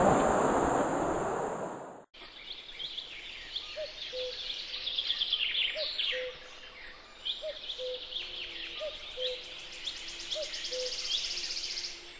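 A loud rush of wind-like noise cuts off abruptly about two seconds in. Then birds sing and chirp, with many quick high calls, one low short note repeated about once a second, and a steady high buzz in the last few seconds.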